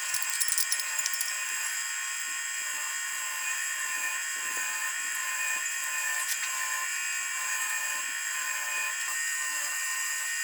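Small high-speed electric power tool running steadily with a high, even whine, with a few light crackles in the first second.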